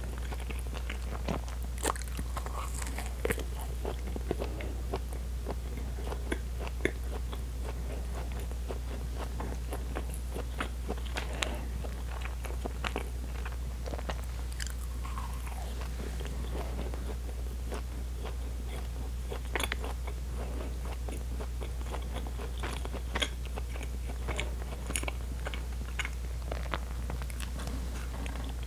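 Close-miked chewing of pão de queijo, a chewy cheese bread: irregular soft wet mouth clicks and smacks, with a steady low hum underneath.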